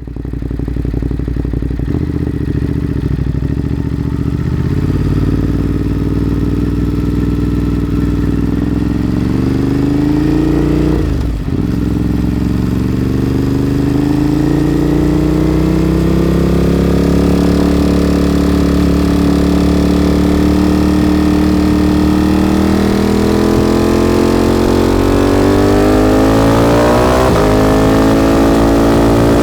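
Ducati motorcycle engine through a Termignoni aftermarket exhaust, its note climbing slowly as it pulls. About eleven seconds in there is a brief dip, as at a gear change, and then it keeps rising steadily.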